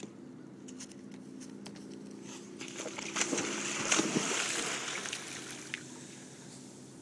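Water splashing and sloshing around a kayak as it is paddled, rising to a burst of splashes for about three seconds in the middle, over a steady low hum.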